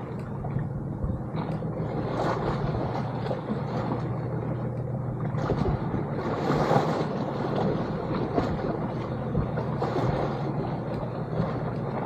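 Sea water washing and splashing close by, with a swell of louder rushing about six to seven seconds in and a steady low hum underneath.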